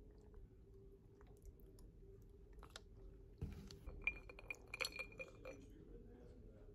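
A tall glass of iced coffee clinking as it is stirred: a quick run of light clinks with a short ring, starting a little over three seconds in. Before that, only faint small ticks.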